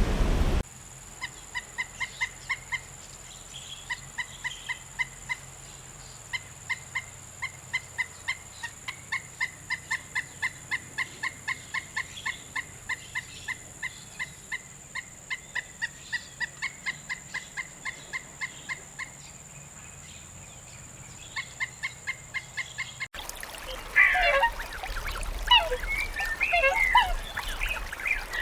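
An animal's rapid series of short, pitched calls, about four to five notes a second in runs with brief pauses. Near the end it cuts abruptly to a different recording of overlapping, irregular honking calls.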